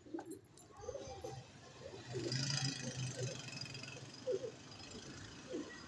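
Domestic pigeons cooing, short repeated coos every second or so. About two to three seconds in, a louder stretch of rushing hiss with a low hum rises over them.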